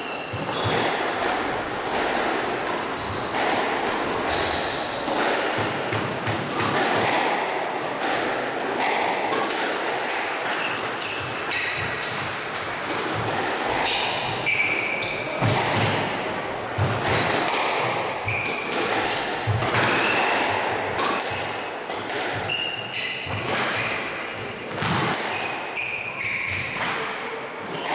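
Squash being played: repeated sharp strikes of racket on ball and ball off the walls, echoing in the walled court, with short high squeaks of shoes on the wooden court floor.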